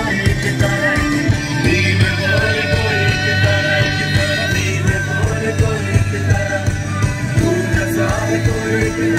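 Live band playing a song: several singers over drums, bass and electric guitar, coming through the stage PA and heard from among the crowd.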